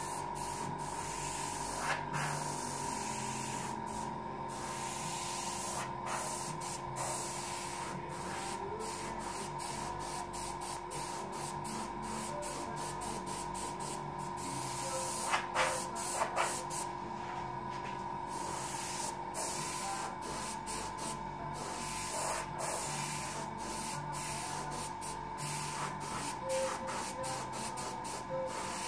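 Airbrush hissing in many short spray strokes as the trigger is pressed and released, with a steady hum underneath.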